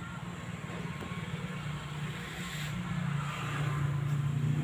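A motor running with a steady low hum, slowly getting louder.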